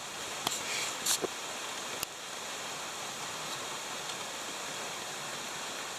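Ice-climbing tools and crampons striking the ice of a frozen waterfall: a few sharp knocks in the first two seconds, over a steady rush of meltwater.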